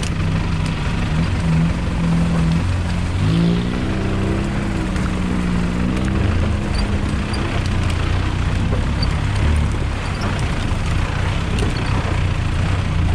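An off-road 4x4's engine running under load, revving up about three seconds in and then settling back to a steady drone.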